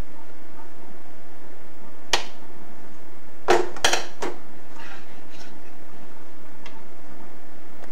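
A baby's hand slapping a plastic high-chair tray: one sharp knock about two seconds in, a quick run of three or four knocks a second and a half later, then a few faint taps, over a steady low hum.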